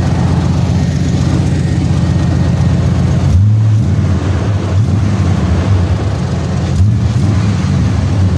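OBS GMC Sierra pickup's engine running at idle, blipped up briefly twice, about three and a half seconds in and again near seven seconds. A new exhaust manifold gasket has made it sound much better, but it still has a little bit of a leak.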